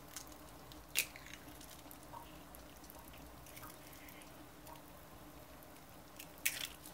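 Egg curry gravy simmering in a stainless steel pan, bubbling and plopping faintly, with a sharp click about a second in and a couple more near the end.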